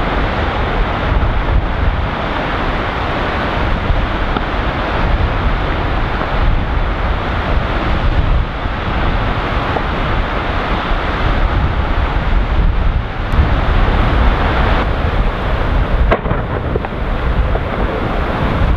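Large iceberg breaking up and rolling in the sea: a steady, deep rumble and the surge of churning water, with wind buffeting the microphone.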